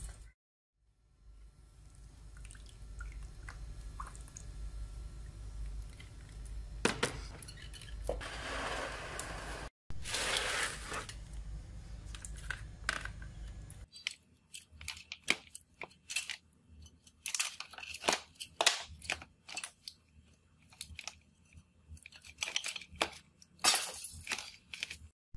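For about the first half, a steady low hum with a faint fizz from the electrolysis rust-removal bath. From about halfway on, quick clicks, knocks and scrapes as the rusty steel pipe cutter and its threaded feed screw are handled and taken apart on a plastic tray.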